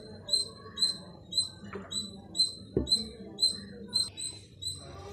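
High chirps repeating evenly about twice a second, like a small animal's call, with a single dull thump about halfway through.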